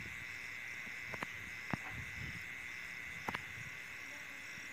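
Night insects such as crickets chirping steadily: a continuous high trill with a higher chirp pulsing at an even pace. A few short faint clicks sound about a second in, just after, and again past the three-second mark.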